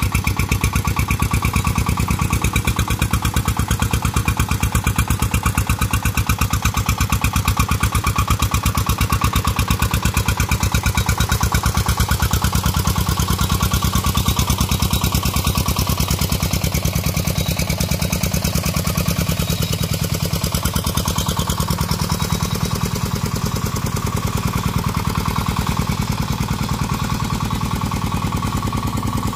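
Single-cylinder diesel engine of a công nông two-wheel tractor running under load, pushing a heavily loaded trailer up a slope, with a rapid, even beat that holds steady throughout.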